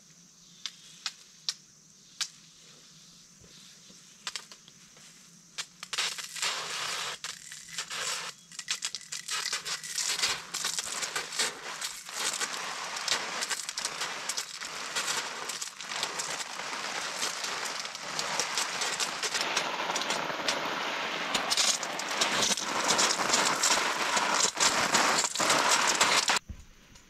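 Water from a garden hose spraying onto broad leafy vegetable plants and soil: a dense hiss of falling drops with many small ticks. It starts about six seconds in, grows louder, and cuts off suddenly near the end, with a few sharp ticks before it.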